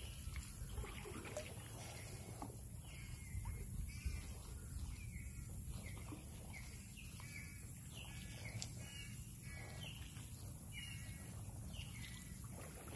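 A bird calling repeatedly: short, slightly falling calls about once a second, starting about two seconds in, over a steady low background rumble.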